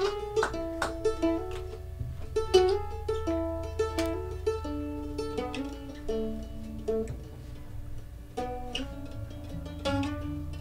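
Acoustic plucked string instruments playing a melodic instrumental intro to a folk-rock song, picked notes ringing one after another.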